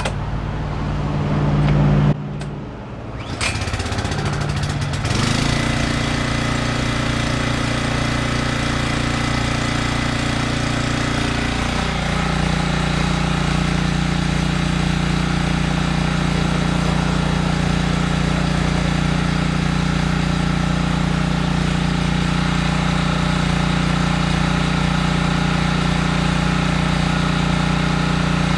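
The 173cc four-stroke overhead-valve engine of a Simoniz 2700 PSI gas pressure washer is pull-started on choke and runs. The sound dips sharply about two seconds in, then the engine picks up again. About twelve seconds in its note drops and it settles into a steady run.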